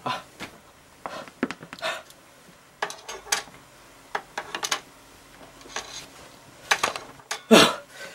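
A flurry of light clinks and knocks as a metal drink can and small objects are handled and bumped on a shelf, mixed with a few loud gasping breaths, the loudest near the end.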